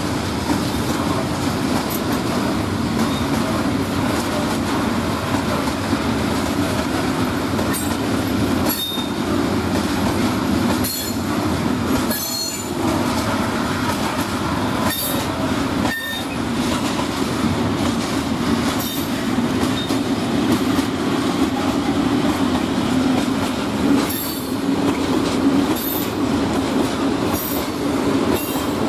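A long freight train of hopper wagons rolling past: a steady rumble of wheels on rail, with scattered clicks over the rail joints and several brief high wheel squeals.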